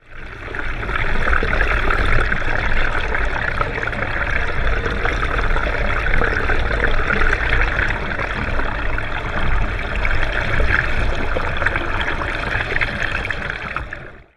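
Water rushing over a camera held underwater: a steady hiss with a deep low rumble, which begins suddenly and fades out just before the end.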